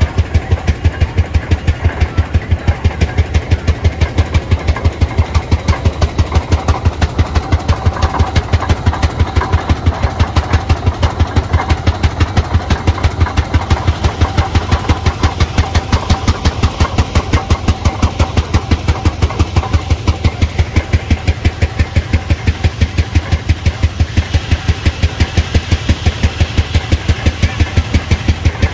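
Rumely OilPull kerosene tractor engine running steadily on the belt, driving a sawmill, its exhaust firing in an even, rapid beat.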